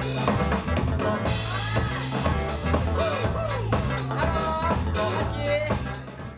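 Dance music with a drum-kit beat, a bass line and a melodic line over it, fading out near the end.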